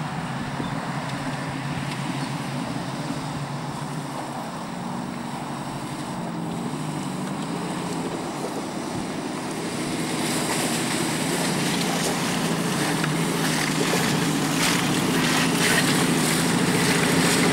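Bobtailed Range Rover Classic's V8 engine working off-road, its pitch rising and falling. It gets louder and nearer from about ten seconds in.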